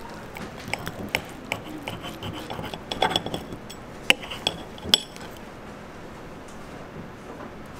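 Metal knife and fork cutting through a steak on a ceramic plate: scraping strokes and several sharp clinks of metal on the plate, with brief ringing, between about one and five seconds in.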